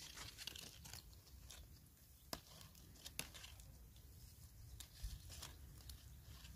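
Faint rustling and crackling of a rose shoot and its leaves being handled and cut with a grafting knife, with a few sharp little clicks, the clearest a little over two seconds and about three seconds in.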